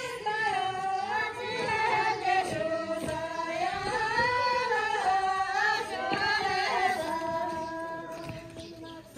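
Women singing a slow folk melody in unison, with long held notes that glide up and down; the last note is held and fades away near the end.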